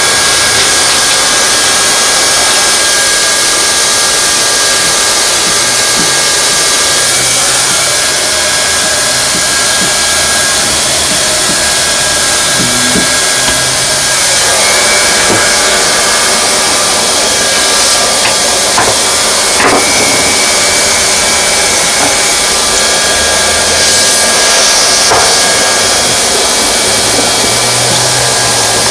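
Hand-held hot-air welding gun blowing steadily with a faint motor whine while heat-welding TPO roofing membrane, with a few light knocks.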